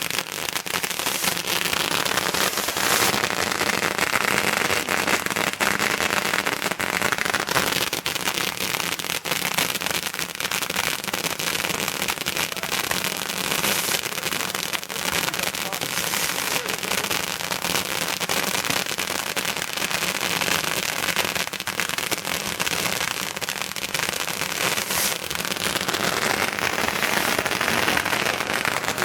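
A string of firecrackers going off in a rapid, continuous crackle of many small bangs, steady in loudness.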